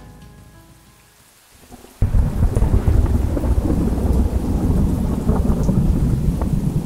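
Music fades out, then about two seconds in a heavy rumble of thunder over steady rain starts suddenly and keeps going.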